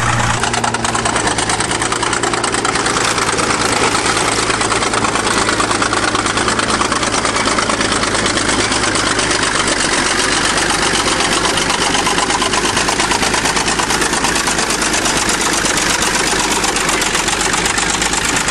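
1953 International TD20 crawler bulldozer's diesel engine running steadily and hard, with a fast even pulsing, while the machine works.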